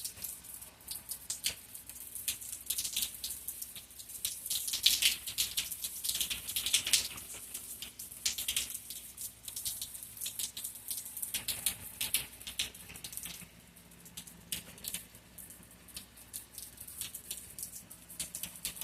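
Rain during a thunderstorm: raindrops pattering close by as many sharp, irregular ticks, busiest in the first half and thinning out later.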